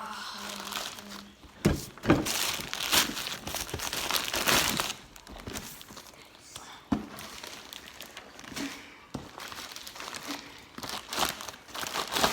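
Packaging crinkling and rustling in irregular bursts as a boxed item is unwrapped, busiest in the first few seconds, with a few light knocks later.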